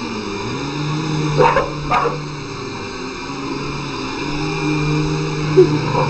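Dog barking twice in quick succession about a second and a half in, over the steady whine of a running vacuum cleaner. A sharp thump near the end.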